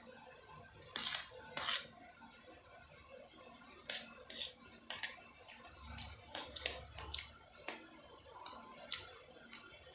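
A person eating spicy Maggi instant noodles close to the microphone: two loud slurps about a second in, then a string of short clicks and clinks.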